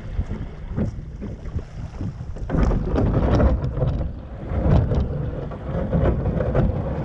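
Plastic kayak hull scraping and crunching over a gravel beach as it is dragged ashore, growing louder about two and a half seconds in, with wind buffeting the microphone.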